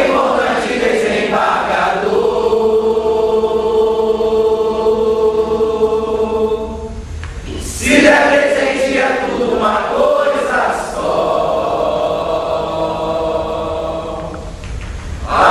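A chorus of voices singing a chant in long held notes: one phrase swells at the start and is held, then a new phrase begins about eight seconds in and is held again.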